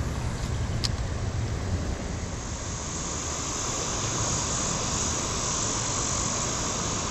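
Steady rush of flowing creek water, with a high, even buzz of summer insects that grows louder from about three seconds in. There is a faint click about a second in.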